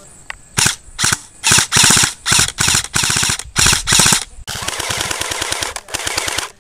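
Airsoft rifle firing on full auto in a string of short bursts, each under half a second, a fast rattle of shots. It is followed by a quieter, longer stream of rapid fire near the end.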